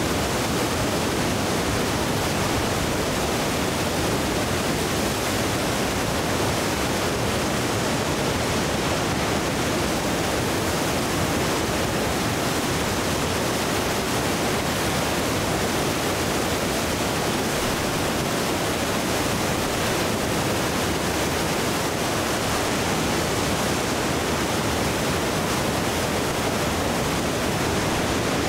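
The flood-swollen Winooski River rushing through churning whitewater rapids: a steady, loud rush of water that does not let up.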